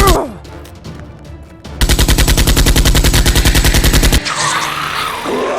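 Rapid automatic machine-gun fire, a gunfire sound effect laid over a toy-blaster fight. One burst cuts off just after the start; a longer, loud burst runs from about two seconds in to about four seconds in, followed by a rushing hiss.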